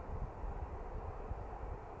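Wind buffeting the microphone in uneven gusts, over a steady rushing hiss of outdoor air.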